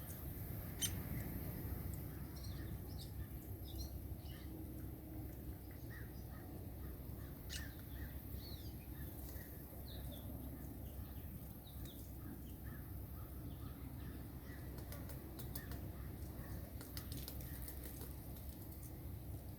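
Short, high bird chirps scattered throughout, with a few sharp ticks and a cluster of quick taps near the end, over a steady low rumble.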